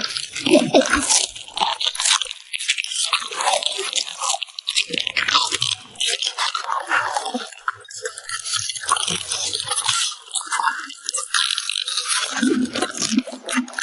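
French bulldog crunching and chewing food, a dense run of crisp, irregular bites with a few short pauses.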